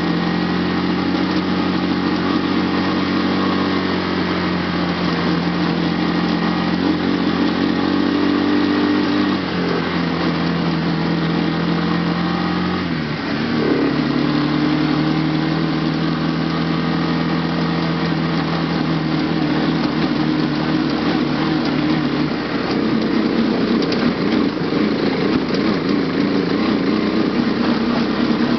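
ATV (quad) engine running hard under load, its pitch stepping down twice, about nine and thirteen seconds in, then holding steady.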